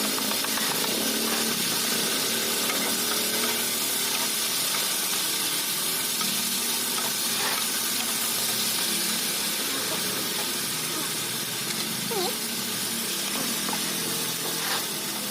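Food frying and sizzling in a hot pan: a steady hiss, with a few faint ticks of stirring.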